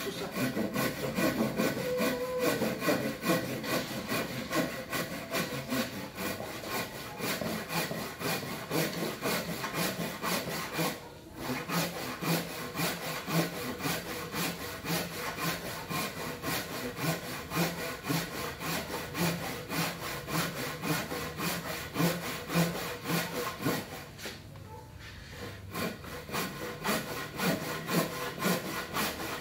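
Hand saw cutting across a wooden beam in steady, rhythmic back-and-forth strokes, the teeth rasping through the timber. The sawing stops briefly about a third of the way in and again for a second or two near the end, then resumes.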